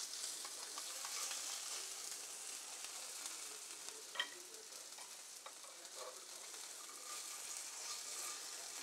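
Hot frying pan of filet mignon and its juices sizzling steadily as the meat is forked out onto a plate, with a single sharp metal clink of the fork about four seconds in.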